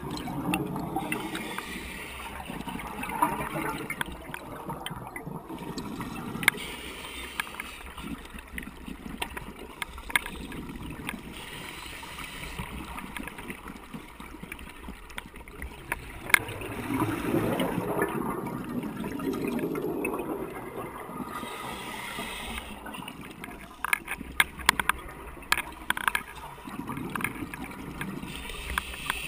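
Scuba diver breathing through a regulator underwater: bubbling, gurgling exhalations that swell and fade every few seconds. Scattered sharp clicks from the camera rattling in its housing run through it.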